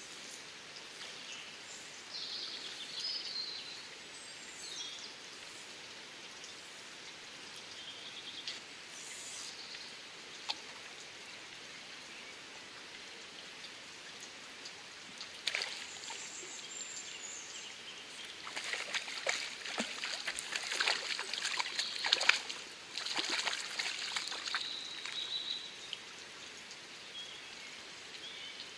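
Water splashing in a quick irregular run about two-thirds of the way through as a hooked trout thrashes at the surface while it is played in close. Before that, birds sing briefly over a low steady background.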